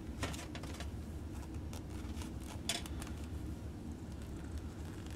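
Rubber-gloved hands handling wire strippers and a coil of solder: a few short rustles and clicks in the first three seconds, over a steady low hum.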